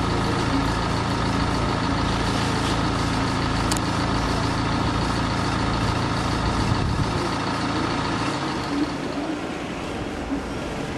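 A heavy engine running steadily with a low hum, fading away about eight to nine seconds in.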